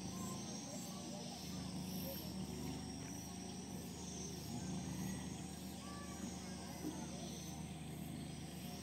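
Outdoor ambience: insects chirping steadily over a low, steady hum.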